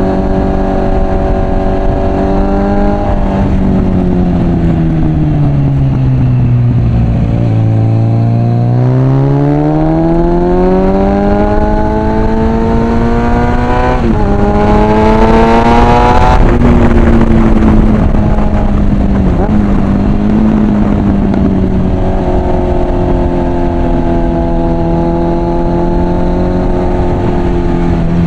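Suzuki Bandit 650's inline-four engine with a loud aftermarket Mivv exhaust, heard from the rider's seat with wind noise. It holds steady, falls away to low revs as the bike slows, then climbs hard up through the revs with a brief break partway. Near the peak, about two-thirds of the way in, it drops back to a steady cruise.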